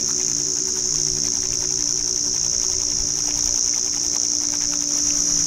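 A steady, high-pitched insect chorus, with the soft rubbing of hands working crushed coastal wattle leaves and water into a lather.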